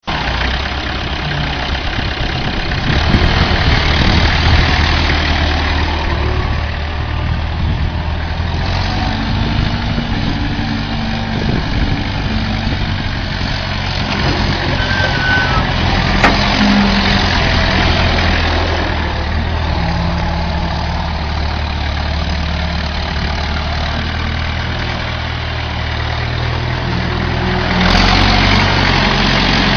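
Tractor engine running steadily, getting louder about two seconds before the end.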